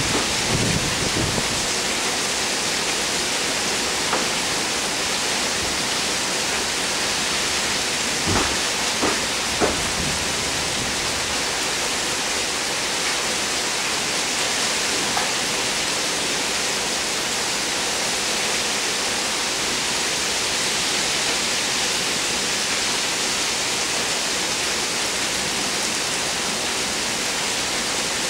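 Heavy thunderstorm rain pouring down as a steady, dense hiss. A low rumble of thunder dies away in the first second or two, and a few light ticks come about eight to ten seconds in.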